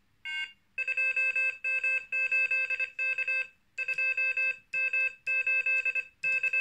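Morse code beeping from the Morserino-32's small built-in speaker: a steady-pitched tone keyed in short and long elements, making the characters of a four-character call sign in echo trainer mode, with a brief pause about three and a half seconds in.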